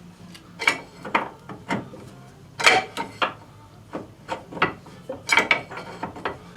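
Garage work under a car: a series of about a dozen irregular sharp knocks and clanks of tools and jack hardware being handled.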